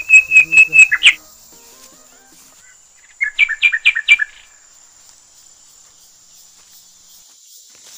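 A bird calling in two quick runs of sharp, high repeated notes, about six a second. The first run ends about a second in, and the second comes about three seconds in with rising notes. A faint, steady insect drone runs underneath.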